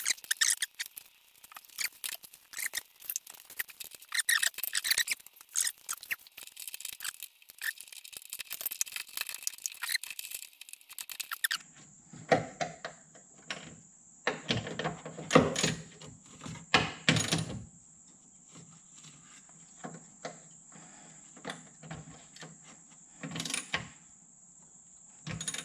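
Wrench tightening a bolt through the muffler's rubber support hanger: high squeaking with rapid clicking for the first eleven seconds or so, then scattered sharp knocks and clicks of metal tools.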